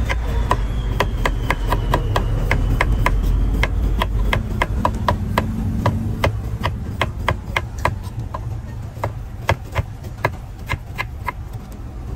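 Kitchen knife cutting a carrot into slices against a wooden cutting board: a run of sharp knocks, about three to four cuts a second, a little slower and less even in the second half.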